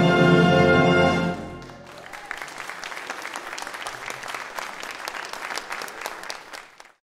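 A brass band holds a loud final chord that ends about a second in, followed by audience applause that cuts off suddenly near the end.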